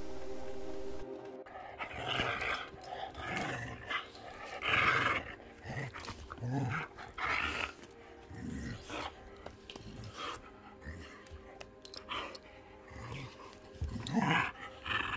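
Background music for about the first second, then a dog growling in play while tugging on a rubber ring toy, in short irregular bursts.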